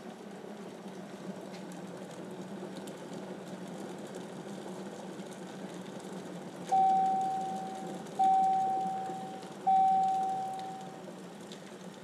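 KitchenAid electric glass kettle heating water near the boil with a steady low noise, then three long beeps about a second and a half apart, each fading away: the kettle's signal that the water has reached its set 212°F.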